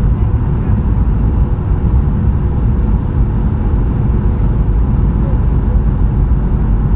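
Steady low rumble of a Boeing 737-800's cabin in flight, engine and airflow noise, with faint steady tones over it.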